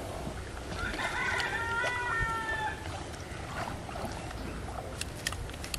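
A rooster crowing once, a single drawn-out call of about two seconds starting about a second in. A few short sharp taps follow near the end.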